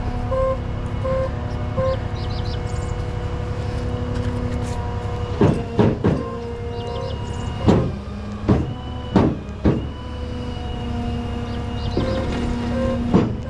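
Heavy truck engine running steadily. Short repeated beeps come at the start and again near the end, and a run of sharp metallic clanks falls in the middle.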